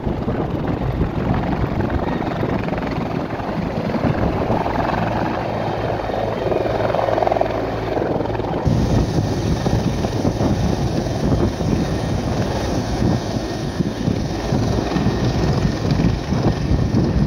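Military utility helicopter lifting off and climbing away, its rotor beating fast and loud over the turbine's steady run.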